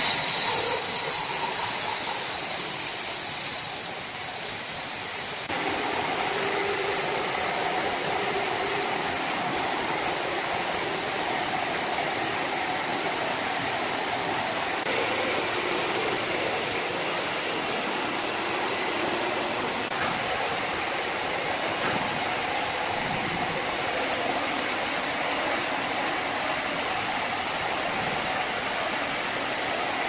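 Horizontal band sawmill running, its blade sawing lengthwise through a large log with a steady noise that changes abruptly a few times.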